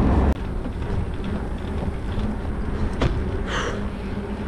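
Road and wind noise from a bicycle being ridden along a paved highway, with a click about three seconds in and a short high squeak just after it.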